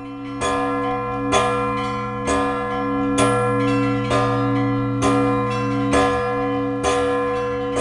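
Orthodox church bells ringing (zvon), with a fresh strike about once a second over a lasting low hum and several tones that keep ringing.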